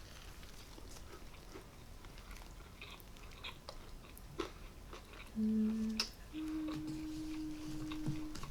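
Quiet rustling and small clicks of a takeout sandwich and its wrapper being handled and sauced. In the second half come two steady hum-like tones: a short one, then a longer, slightly higher one held for about two seconds, which is the loudest sound here.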